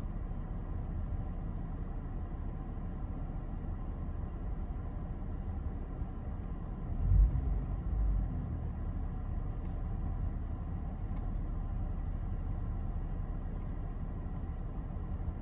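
Car engine idling at about 700 rpm, a steady low rumble heard from inside the cabin. A brief louder low thump comes about seven seconds in.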